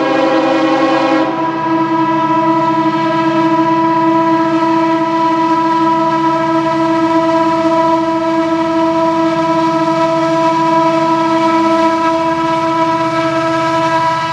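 Norfolk Southern diesel locomotive's multi-chime air horn held on long and loud as the train climbs the grade, a few of its notes cutting out about a second in while the rest sound on steadily, over the rumble of the engine working hard.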